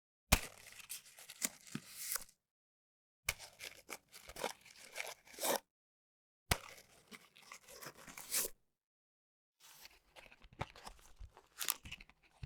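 Fingers handling a cigarette pack and sliding a cigarette out, in four separate takes of about two seconds each, with dead silence between. Each take is a dry rustle with small sharp clicks.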